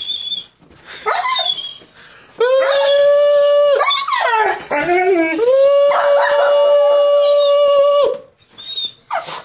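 Dog howling in two long, steady notes, the second longer, with short wavering whines and yips before and between them.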